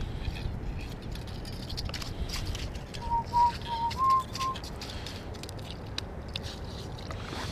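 Five short whistled notes at nearly one pitch, the fourth and fifth a little higher, about three seconds in, over a steady low rumble.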